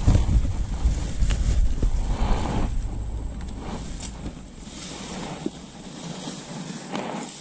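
Wind buffeting the microphone as a low rumble, strong at first and dying down after about four seconds, with short rustles as an umbrella's fabric canopy is handled.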